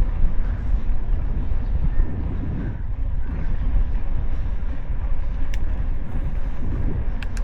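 Wind buffeting and road rumble on an action camera's microphone while riding a bicycle, a steady low rumble, with two short clicks in the second half.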